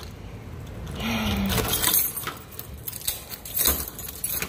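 Keys jangling, with a series of sharp metallic clicks and clinks over the last few seconds.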